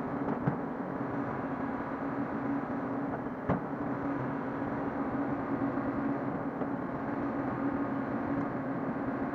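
Hyundai hydraulic excavator's diesel engine running steadily as it works soil with its bucket, with two sharp knocks, one about half a second in and one about three and a half seconds in.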